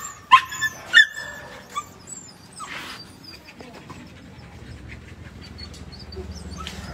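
A caged dog gives four short, high-pitched whimpering cries in the first two seconds. A low steady hum comes up near the end.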